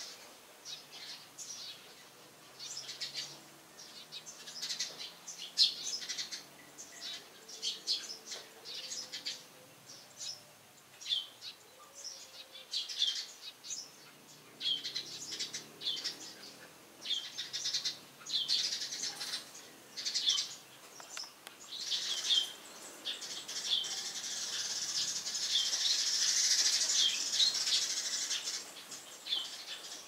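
Eurasian tree sparrows chirping: short, sharp, high chirps repeated one or two a second. In the last third they thicken into a denser stretch with a steady hiss behind them.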